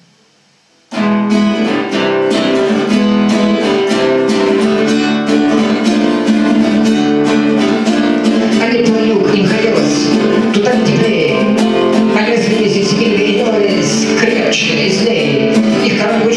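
Acoustic guitar strummed and played as chords, starting about a second in.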